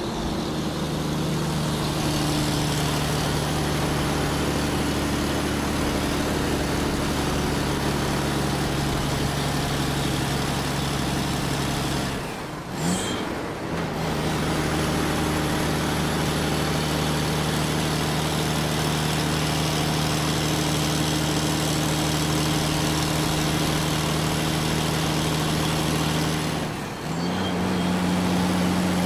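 Large truck driving, its engine running with a steady hum. The sound dips briefly twice, about halfway through and near the end, and after the second dip the engine note sits a little higher.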